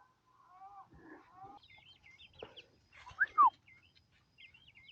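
Young chickens (pullets) calling: short arching calls, then thin high chirps, with two sharp falling squawks about three seconds in, the loudest sounds.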